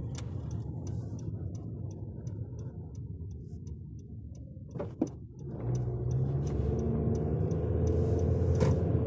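Car cabin: engine and road rumble with a regular ticking over it. A sharp click comes about five seconds in, and after it the engine note rises and grows louder as the car picks up speed.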